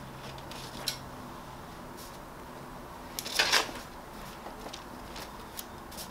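Paper cover sheet being handled and shifted over a shirt on a heat press platen: light clicks and one brief rustle about three and a half seconds in, over a faint steady hum.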